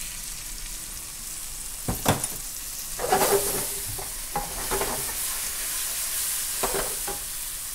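Fried salmon pieces sizzling in a hot wok as water goes in, with a wooden spatula stirring and knocking against the pan several times from about two seconds in.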